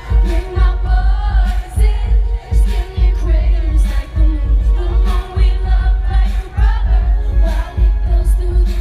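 Live pop music played over a concert PA, with a steady heavy bass beat and a woman's lead vocal, heard from among the audience.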